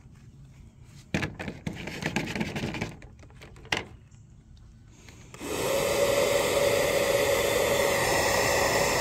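Bubble gun's small electric fan motor running with a steady whir and hum, starting about five seconds in. Before it, rustling and scuffing on dry grass.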